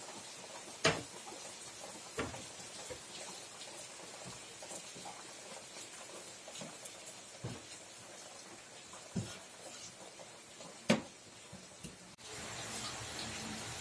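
Steady hiss of rain with scattered sharp ticks and knocks, two of them louder, about a second in and near eleven seconds. The hiss grows louder near the end.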